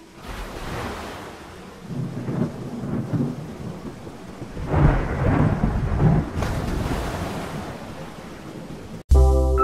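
Wind buffeting the microphone, a rumbling noise that swells and eases. Music cuts in near the end.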